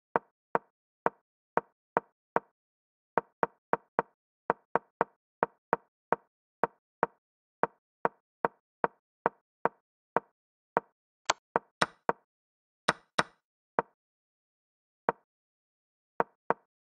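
Digital chess board's move sound effects: a rapid run of short wooden-sounding clicks, about two a second, as moves are played in quick succession. A few sharper, brighter clicks come about two-thirds of the way through, and the clicks thin out near the end.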